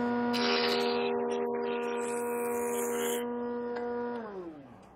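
Benchtop jointer's motor running with a steady high whine while a spruce board's edge is fed over the cutterhead, the cutting noise lasting about three seconds. About four seconds in the jointer is switched off and the motor winds down, its pitch falling away.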